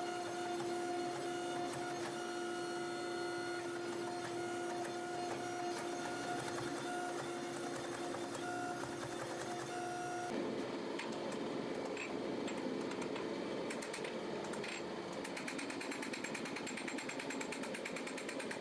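Hydraulic forging press running with a steady, even-pitched mechanical hum while hot steel sits between its dies. About ten seconds in the hum cuts off and a rougher mechanical noise follows, with faint rapid ticking near the end.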